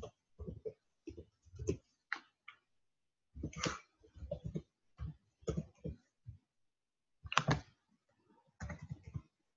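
Computer keyboard keystrokes typing in irregular runs, short clicks in quick clusters with brief pauses between them.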